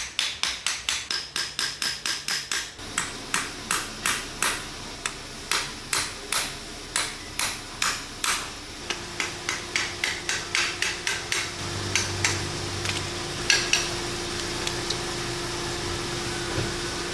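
Repeated sharp hammer blows, fast at first at about four a second, then slower and uneven. A steady hum comes in about halfway through.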